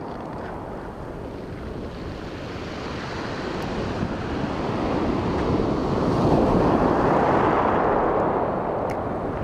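Waves surging onto a steep storm beach, the surf swelling steadily to its loudest about two-thirds of the way through and then easing, with wind on the microphone.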